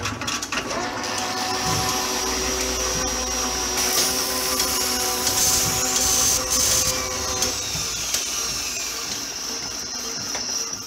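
Sound effects for an animated intro: a steady motor-like whir and electrical hum with crackles, and a faint falling whine in the later part. The sound cuts off abruptly at the end.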